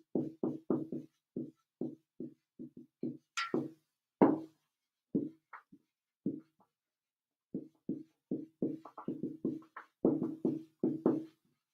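Dry-erase marker squeaking on a whiteboard in many short pitched strokes as words are handwritten, with a pause of about a second in the middle.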